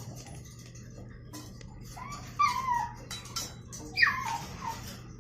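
A dog whining, two high calls: the first wavers over about half a second, the second, louder one slides steeply down in pitch. A steady low hum runs beneath.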